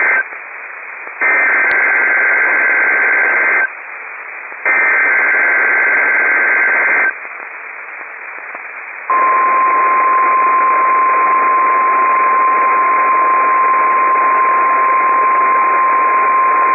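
NOAA Weather Radio emergency alert test over radio hiss: bursts of screeching SAME digital header data tones, each about two and a half seconds long with a second's gap between them. About 9 s in, the steady single-pitch 1050 Hz weather radio warning alarm tone begins and holds.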